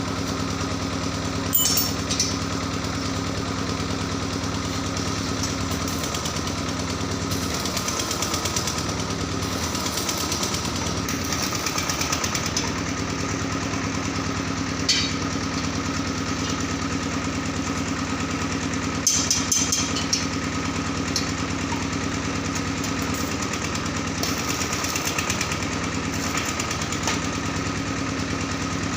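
A machine motor running steadily with an even drone, broken by a few sharp metallic knocks, a small cluster of them about two-thirds of the way through.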